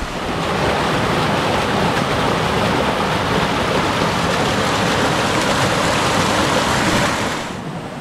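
Waterfall: loud, steady rushing water that swells about half a second in and drops away, duller, near the end.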